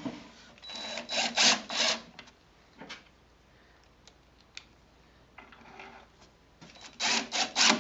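Screws being driven into a barn door lock's mounting bracket in a wood stud: two short stretches of a driver turning screws, about a second in and again near the end, with a few light clicks between.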